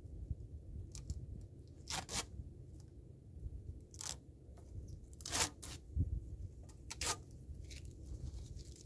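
Gear being handled in a fabric backpack: a few short rasping, ripping sounds, like nylon fabric or a strap being pulled, with small clicks between them, over a steady low rumble.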